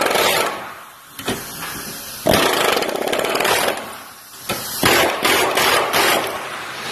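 Power chisel hammering against the steel bush housing of a car suspension arm in several bursts with short pauses between them, cutting out the old bush so polyurethane bushes can be fitted.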